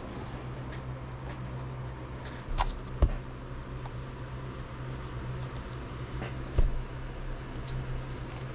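Sharp plastic clicks and taps as gloved hands work at a sealed clear plastic card case, the loudest about three seconds in and again about six and a half seconds in, over a steady low hum.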